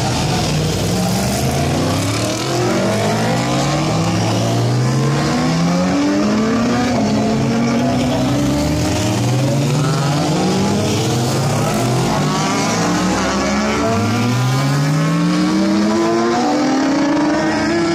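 Several racing motorcycles accelerating away one after another, their engines revving up through the gears. The pitch climbs, drops at each shift and climbs again, over and over, with the engines overlapping.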